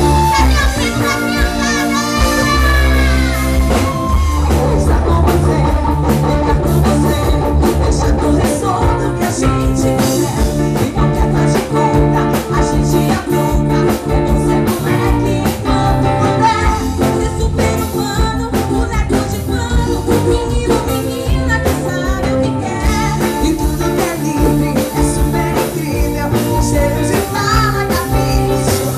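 A live band's music played loud through a PA system, with singers singing into microphones over a steady beat.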